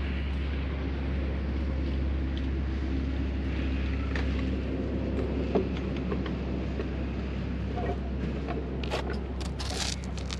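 A steady low rumble runs underneath, with a few sharp metal clicks and, near the end, a stretch of scraping and rustling as an anchor bolt is worked into place among rebar and tie wire.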